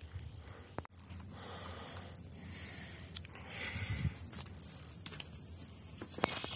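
Grassland insects such as crickets or grasshoppers chirring steadily, a high thin sound that starts about a second in. A few footsteps click on stones, and there is some low rumble.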